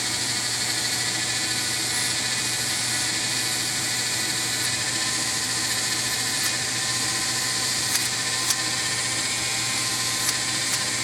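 Dremel rotary tool spinning a wire wheel on a hand-held extension shaft, held lightly against a small metal toy-train wheel to scour off crud and shine it: a steady whine with a few sharp clicks in the second half.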